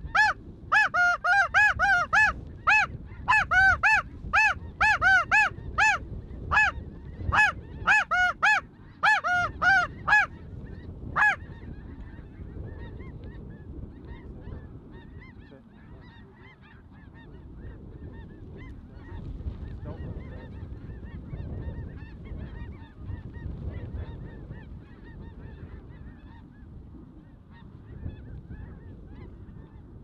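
Snow goose calling: a rapid run of loud, high, yelping honks, about two to three a second, that stops about eleven seconds in. After that only a low rumble and faint distant calls remain.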